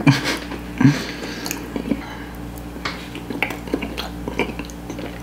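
Close-up eating sounds: wet chewing and lip smacking of soft spinach curry (palak paneer) as a finger is licked clean, with a metal fork clicking and scraping in a black plastic takeout tray. Short clicks come throughout, two louder ones near the start and about a second in.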